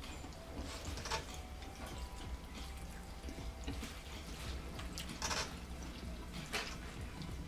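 Soft, wet clicks and taps of wooden chopsticks picking through noodles in broth in a ceramic bowl, with a few sharper clicks about a second in and twice past the middle, over a low steady hum.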